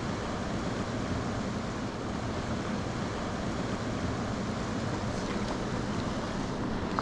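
Steady rush of river water flowing over a shallow, rocky riffle.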